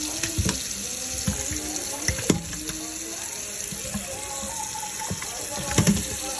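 Kitchen tap water running into a stainless steel sink full of fish, with several sharp knocks as the fish are shifted by hand.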